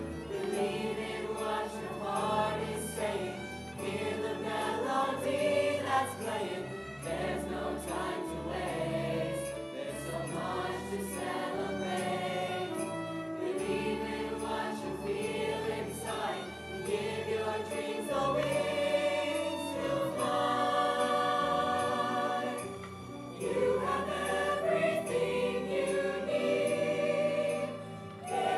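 A large school choir singing a slow song with live instrumental accompaniment from a pit ensemble.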